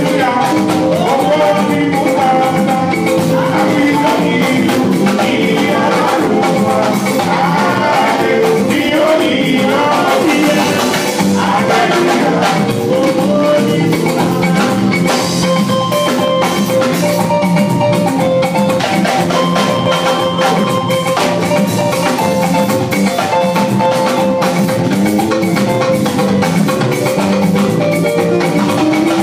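Loud band music with drums and percussion playing a steady beat under a bright melodic line, without a break.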